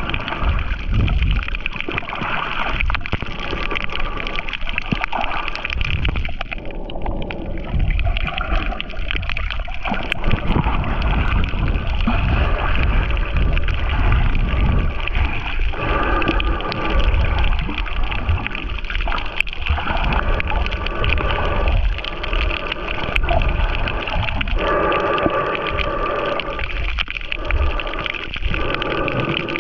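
Underwater sound picked up by a snorkeler's camera held below the surface: water gurgling and sloshing over a low, muffled rumble, with faint steady tones coming and going.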